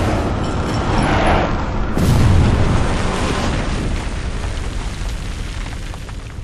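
Trailer sound design: explosion booms over a film score. A heavy, deep boom comes about two seconds in, and its rumble then slowly fades away.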